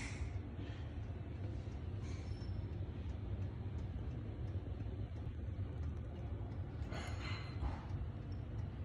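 A steady low rumble with a few faint, irregular clicks, the clearest two about seven seconds in.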